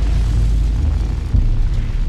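Deep booming rumble of an intro sound effect, with a sharper thump just past halfway, over music.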